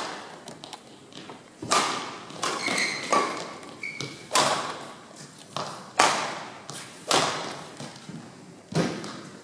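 Badminton rackets hitting a shuttlecock in a rally: about eight sharp hits, roughly one a second, each echoing in a large hall, with a couple of short squeaks in between.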